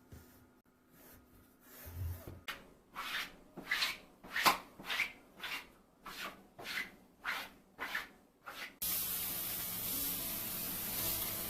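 Rhythmic hand rubbing on a surface, like sanding or scrubbing, at about two strokes a second. Near the end the strokes stop and a steady hiss starts, with soft music coming in.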